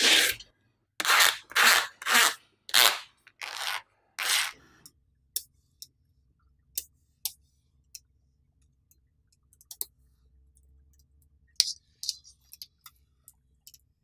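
A green plastic sheet scraping against a slab of small magnetic balls as it is drawn out, in about seven short rasping strokes over the first five seconds. After that, scattered light clicks of magnetic balls touching and snapping together.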